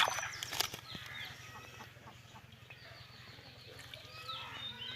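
Birds chirping and calling in short rising and falling notes. A sharp knock at the very start is followed by a few quick clicks.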